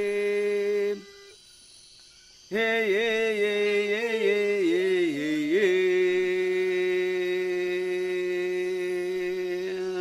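A single voice humming a chant. A held low note breaks off about a second in; after a short pause, a wavering phrase settles into one long held note.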